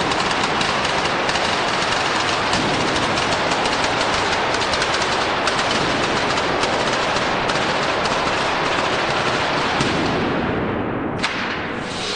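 Fireworks and firecrackers on the Scoppio del Carro cart going off in a dense, continuous run of rapid bangs and crackles. About ten seconds in the crackling thins out, with one sharp bang a second later.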